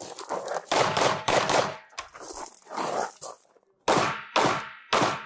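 Beretta APX A1 full-size striker-fired pistol firing a string of shots, each with a sharp crack and a fading echo. The shots come roughly half a second apart, with a short quiet gap just before four seconds in.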